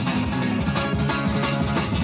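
Nylon-string classical guitar played in flamenco style with fast, continuous strumming, many strokes a second.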